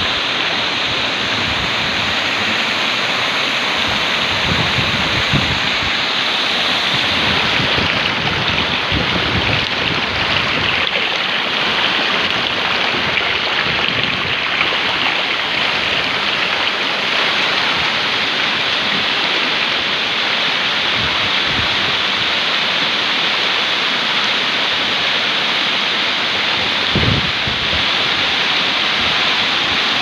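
Water pouring in a wide sheet over a concrete weir and splashing into the pool below: a loud, steady rushing.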